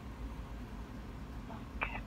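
Steady low hum and hiss of an open phone line heard through a phone's speaker while nobody talks, with a short high chirp near the end.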